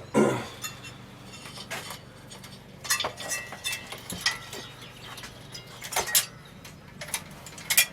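Metal clinks and knocks of tools and parts being handled as the Bing carburetor is worked off a Can-Am motorcycle, several separate strikes, the loudest right at the start.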